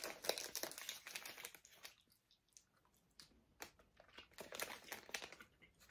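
Faint, intermittent crinkling of a clear plastic candy bag being handled while Sour Patch Kids are picked out. The crackles are dense for the first second or so, then scattered, with a short cluster near the end.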